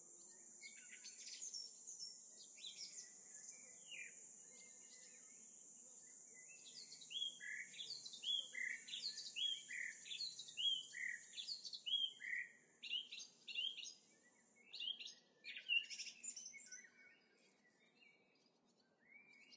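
Garden birds singing: quick runs of short chirping notes, busiest and loudest through the middle, over a thin steady high-pitched tone that stops about fifteen seconds in.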